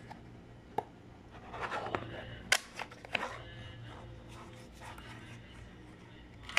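Small cardboard retail box being opened by hand: paper rustling and sharp snaps of the card as the tuck flap is pried open, the loudest snap about two and a half seconds in.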